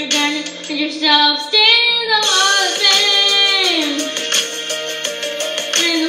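A high singing voice holding long notes over backing music, with one phrase sliding down in pitch about three seconds in.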